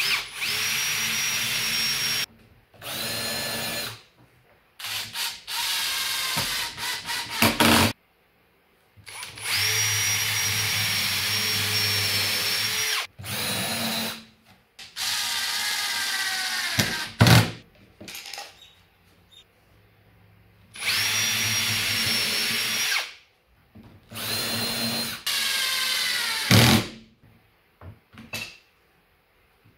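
Electric drill running in repeated bursts of one to four seconds, about eight times, the motor whine steady while running and falling in pitch as it slows at the end of some bursts.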